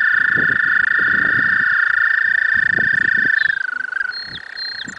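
American toads trilling in a breeding chorus. One male's long, steady, high musical trill is loud and close; it wavers and breaks off about three and a half seconds in, leaving quieter trills from other toads.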